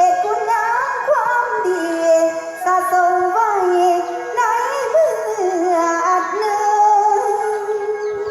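A Thai song with a high voice singing a winding, ornamented melody over the music, played through a PA sound system.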